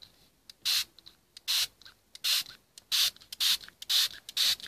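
Water spray bottle squirting in seven short hissing bursts, coming faster near the end.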